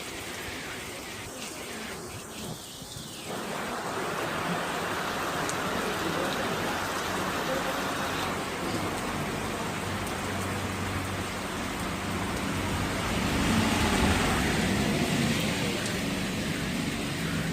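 Steady rain falling, a dense hiss that gets heavier after about three seconds. A low hum rises under it in the second half.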